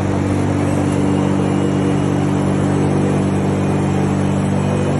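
Machinery on a concrete pour running steadily, a constant low pitched drone with an even hum over it and no change in pitch.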